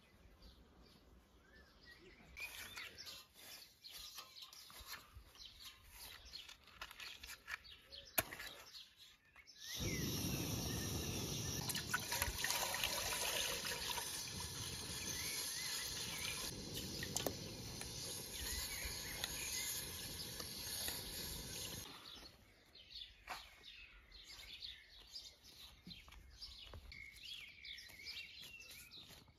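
Water poured from a large plastic bottle into a metal pot already holding water: a steady splashing for about twelve seconds in the middle. Before and after it, birds chirp.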